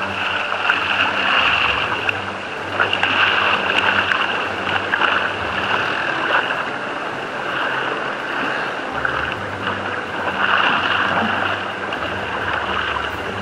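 Wind buffeting the microphone together with water rushing and slapping against the hull of a sailing dinghy underway through choppy water. A steady rushing noise with small irregular splashes and knocks.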